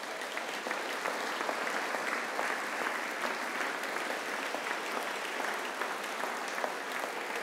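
Large seated crowd applauding: many hands clapping at once in a dense, steady patter.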